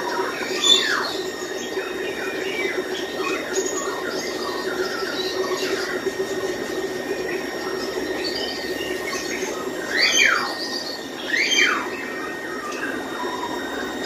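Many caged birds chirping and squawking together in short calls that fall in pitch. Three louder squawks stand out, one near the start and two close together later on, over a steady low hum.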